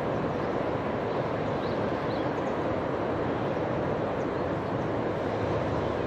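Steady rushing noise of a flowing stream, with two faint, short, high bird chirps about two seconds in.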